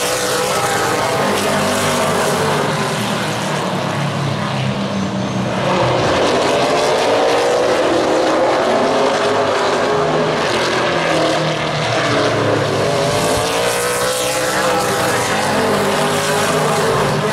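Several super late model stock cars racing, their V8 engines at high revs, the engine note dipping and climbing again about twice as the pack passes.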